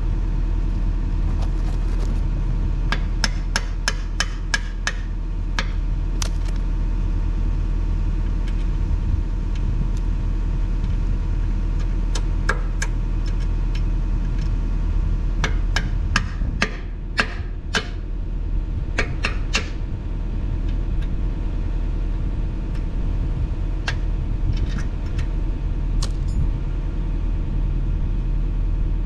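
Mini excavator's diesel engine idling steadily, with sharp metallic hammer taps in quick runs a few seconds in and again around the middle.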